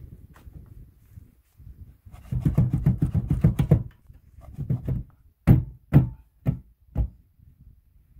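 Sheet-metal distribution board enclosure knocking and scraping against the rough concrete recess and wooden plank as it is pushed into the wall: a clattering scrape lasting about a second and a half, then four sharp knocks about half a second apart.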